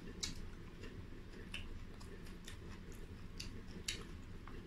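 Faint crunching of crispy fried chicken wings being bitten and chewed: irregular, sharp crackles a few times a second.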